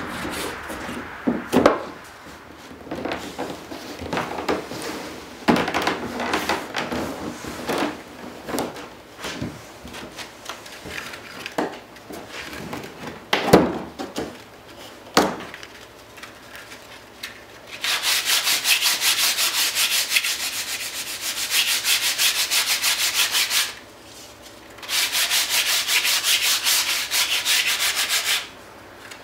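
A cedar strip is handled and test-fitted with scattered knocks and short scrapes. Then its edge is sanded with a hand sanding block in two spells of rapid, even back-and-forth strokes, with a short pause between them.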